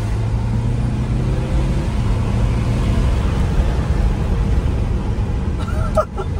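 Car engine and tyre noise heard inside the cabin of a BMW sedan under way: a steady low drone, with a steady hum for the first couple of seconds.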